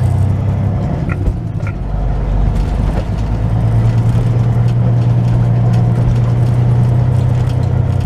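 Semi truck's diesel engine running steadily while the truck rolls slowly, heard from inside the cab as a low drone that grows a little stronger about halfway through. A couple of light clicks about a second in.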